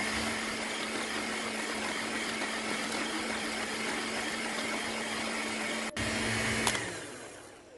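Electric hand mixer running steadily, its wire beaters whipping fat and powdered sugar into a cream in a glass bowl. The motor hum dips briefly near the end, then winds down and stops.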